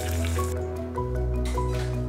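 Light background music with a melody over a steady bass. A frying sizzle carries on under it for the first half second, then stops.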